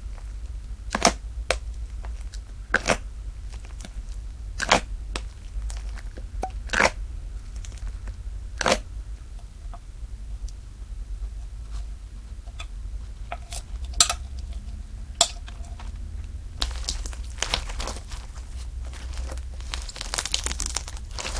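Slime being handled close up: sharp pops and clicks about every two seconds, then a few scattered ones, turning to a run of dense crackling near the end.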